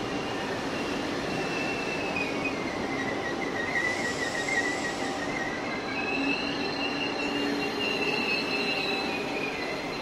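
Regional passenger train rolling slowly along the platform, its wheels squealing on the rails in a high, wavering squeal that dips in pitch about four seconds in and rises again a couple of seconds later, over the steady rumble of the train.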